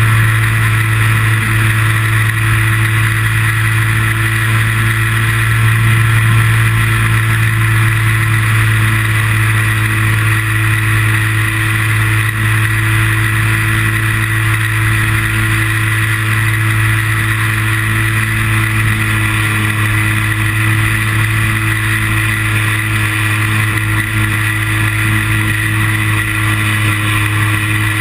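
Steady drone of a small aircraft's motor, heard from a camera mounted on the aircraft, holding an even pitch with a steady high whine over it.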